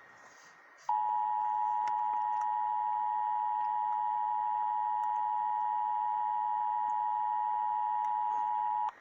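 Emergency Alert System attention tone: a steady, single-pitched electronic tone that starts about a second in, holds for about eight seconds and cuts off abruptly. It announces a National Weather Service severe thunderstorm warning.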